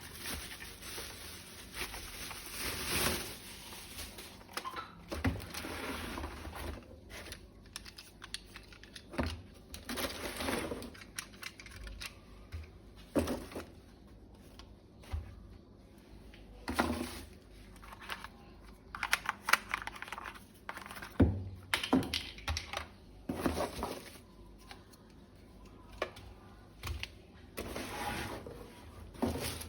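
Irregular clicks, taps and rustles of plastic packaging and toy parts being handled.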